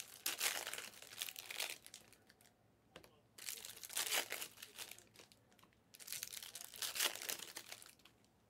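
Panini Prizm Fast Break trading card pack wrappers being torn open and crinkled in the hands, in three spells of crackly rustling with short pauses between.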